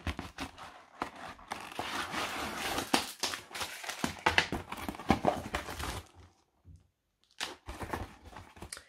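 Packaging being handled: a cardboard box opened and plastic bags and the wrapped canvas rustling and crinkling, with a near-silent pause about six seconds in before a few more rustles.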